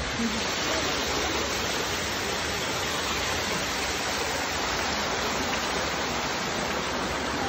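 Water pouring from overhead in a steady cascade and splashing into a pool: an even, continuous rushing noise.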